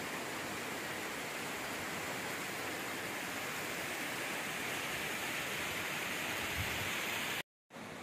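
Steady rushing of a small mountain waterfall tumbling over rocks, a continuous even hiss. It cuts out abruptly near the end.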